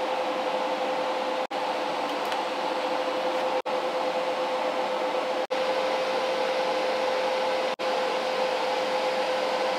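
TIG welding arc on steel tube: a steady buzzing hiss with a constant hum tone, cutting out briefly four times.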